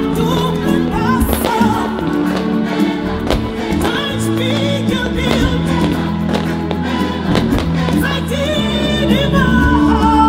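Music with a singing voice carried over held bass notes, with scattered sharp cracks of firework bursts.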